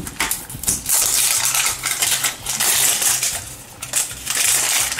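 Crinkly wrapper torn along its tear strip and peeled off a plastic blind-box capsule, crackling and rustling in uneven spurts.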